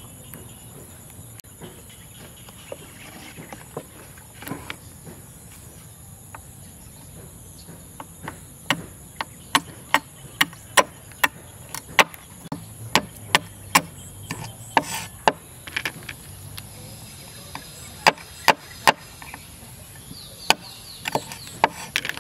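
Knife chopping the tips off freshwater snail shells against a wooden cutting board. Sharp knocks come about two a second, starting about eight seconds in, with a short pause and a few more near the end.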